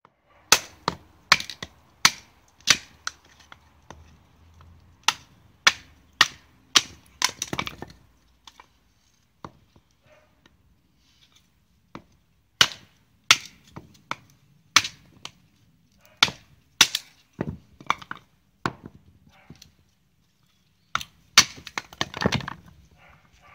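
Batoning: a wooden baton knocking sharply on the spine of a bushcraft knife, driving the blade down through a small log. The strikes come in runs of about one and a half a second with pauses between, and near the end there is a longer run of cracking as the wood gives way.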